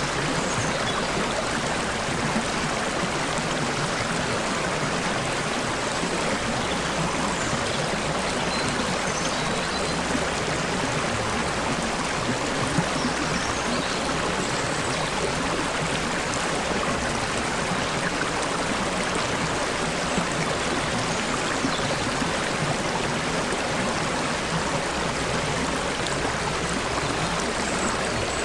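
Babbling stream: water trickling and splashing steadily over stones in an even, continuous rush.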